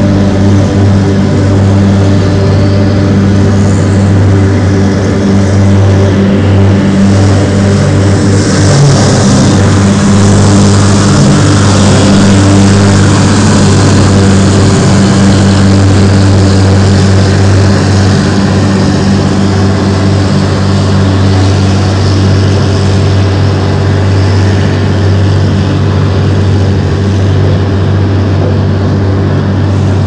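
Heavy airport snow-clearing vehicles working: a steady, loud, low engine drone with a rushing hiss of brushes and blown snow that swells from about eight to fourteen seconds in.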